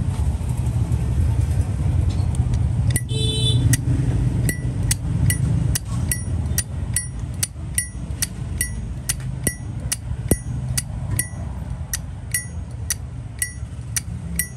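Steady low rumble of vehicle engines and traffic. About three seconds in comes a short ringing burst, and from about four and a half seconds a regular series of short, sharp high ticks, about two a second.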